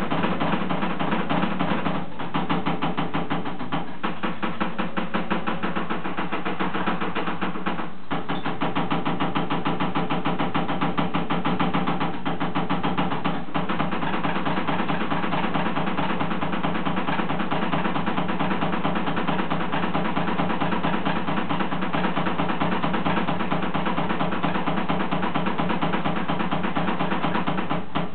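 Fast double bass drumming: two kick drums hit in a rapid, even stream like a machine gun, with a few brief breaks.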